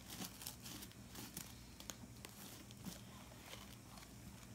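Quiet room with a steady low hum and faint scattered clicks and light rustles, like a plastic mailer bag and its contents being handled.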